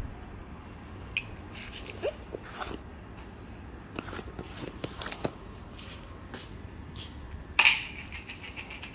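Pet gazelle eating dry lentils, with scattered light clicks and crunches. Near the end the small brass bell on its collar rings once loudly and fades.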